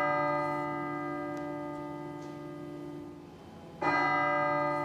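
A bell tolling slowly: a stroke rings on and fades, and the bell is struck again near the end, about four seconds after the last stroke.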